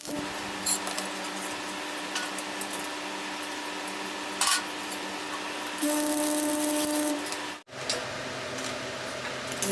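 Steady tool noise from metalworking on steel, with a louder, hissier stretch about six seconds in and a brief break near the end.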